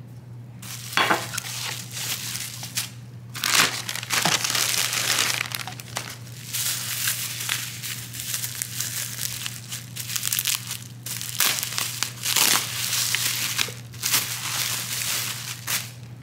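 Plastic bubble wrap crinkling and rustling as it is handled and unwrapped from a bottle, in irregular bursts with short pauses.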